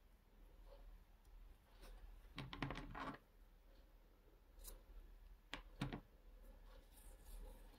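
Faint clicks and rustles of hands working a crochet hook and yarn: a quick run of small clicks about two and a half seconds in, and a few single clicks near six seconds, over near silence.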